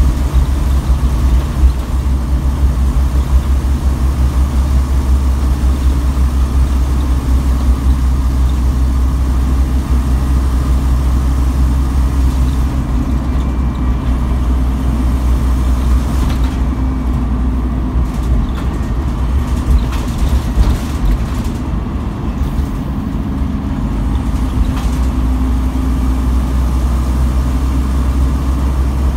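Inside a moving Scania N230UB OmniCity single-deck bus: its five-cylinder diesel engine runs with a steady low drone under road and tyre noise. The road noise eases about halfway through, and short rattles and knocks from the body come through in the second half.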